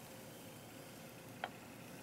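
Faint room tone with one short, light click of cookware about one and a half seconds in, as crepe batter is poured into a small nonstick pan.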